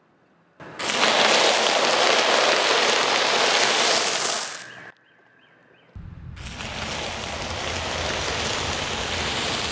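Cheese puffs crunching and crackling under a car tyre. It is loud, starts about half a second in and stops abruptly about four seconds later. After a short gap comes a second, quieter stretch of crackling with a low rumble beneath it.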